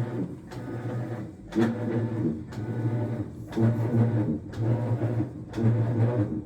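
Maytag top-load washer running its agitate cycle: a motor-and-drive hum that breaks off and restarts about once a second as the stroke reverses, while the agitator does little to the load. A technician traced the fault to stripped agitator and wash plate teeth and a bad belt and pulleys.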